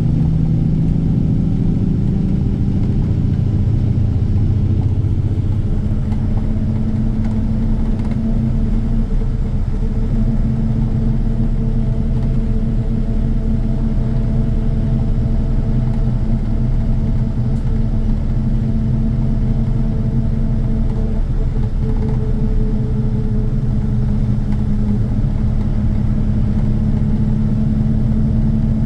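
Engine running steadily: a loud, constant low drone with fainter higher tones that drift slowly in pitch.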